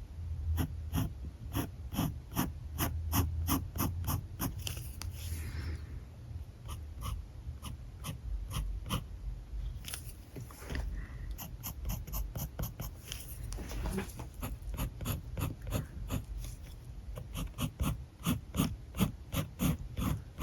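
Alcohol marker nib scratching across paper in quick, short strokes, about two or three a second, over a low steady rumble.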